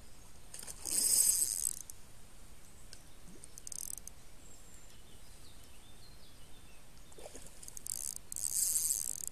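Spinning reel whirring in two short bursts, about a second in and again near the end, with a brief one in between.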